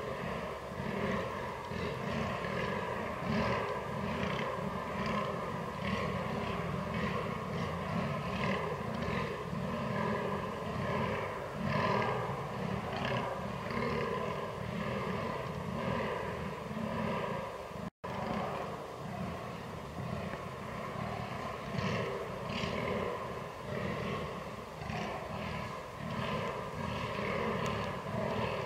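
Fallow deer bucks groaning in the rut: a continuous run of deep, repeated guttural groans pulsing about twice a second.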